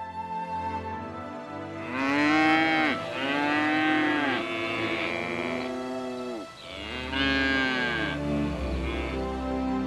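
Cow mooing: a long, drawn-out moo starting about two seconds in, then a second moo about seven seconds in.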